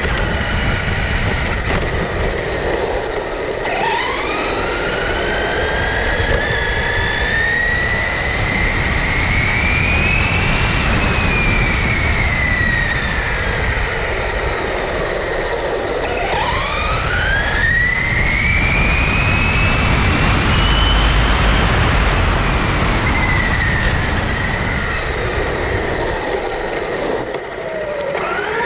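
Traxxas Rustler brushless electric RC car motor whining as the car accelerates and slows on the road, its pitch climbing over several seconds and falling back, twice, with another climb starting near the end. Tyre and wind rush runs under it, heard from a camera strapped to the car.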